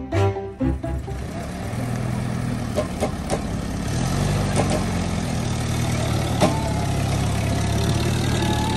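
Vintage military jeep's engine running steadily under load as it tows a stuck van, louder from about four seconds in, with a few sharp clicks.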